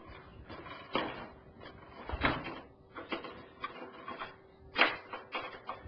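Scattered clicks, knocks and clatter of a microwave oven's metal housing and door parts being worked loose by hand, with one louder knock near the end.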